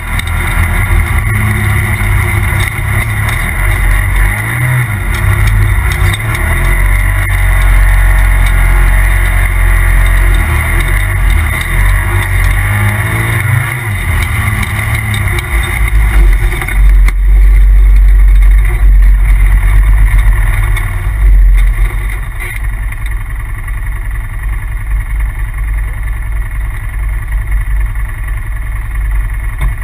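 Polaris RZR Turbo side-by-side's turbocharged engine running under changing throttle, its pitch rising and falling. A heavy low rumble is loudest a little past the middle, then the engine settles to a lower, steadier run near the end.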